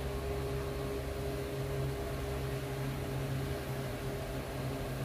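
A steady low hum with an even hiss, unchanging throughout.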